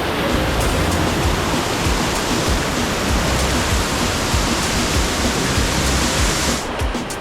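Waterfall rushing loudly and steadily over background music with a steady beat; the hiss of the water drops away suddenly near the end.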